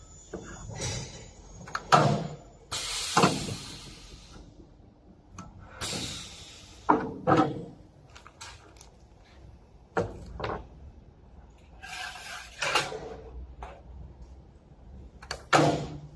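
Metal parts being handled on a Magnabend electromagnetic sheet metal brake: a clamp bar and a metal strip knocked and set down on the machine, giving about five sharp clanks, with a few hissing bursts of a second or so in between.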